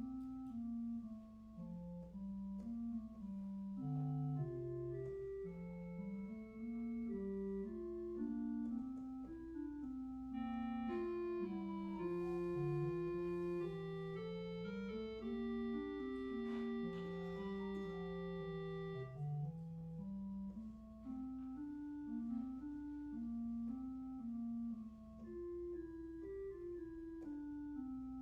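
Organ music: a slow melody of held notes over a moving lower line, growing fuller and brighter with long sustained chords from about eleven to nineteen seconds in.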